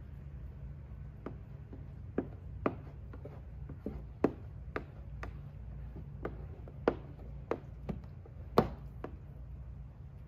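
Plastic squeegee clicking and tapping against wet protective film on a car headlight: about fifteen short sharp clicks at uneven spacing, roughly two a second, the loudest near the end, over a steady low hum.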